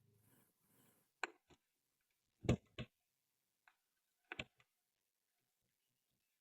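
A handful of separate clicks and knocks in a quiet room; the loudest is a knock about two and a half seconds in.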